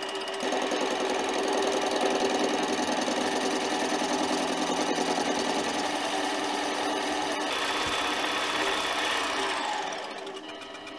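Mini lathe running under a facing cut on a metal plate, a steady geared whir that grows louder about half a second in. Near the end its pitch falls and it fades as the spindle winds down.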